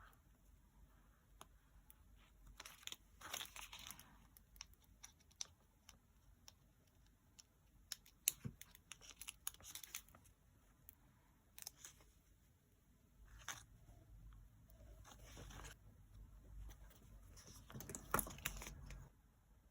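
Faint rustling and tearing of paper and stickers being handled and peeled during journal decorating, in scattered bursts with small taps.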